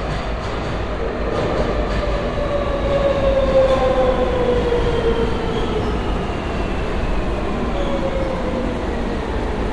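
Electric train's motor whine, several tones falling slowly in pitch together over a steady rumble as the train slows down.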